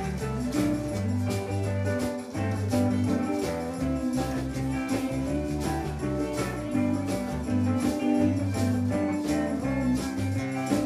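Live band playing reggae: electric guitars over a bass line and a steady drum beat.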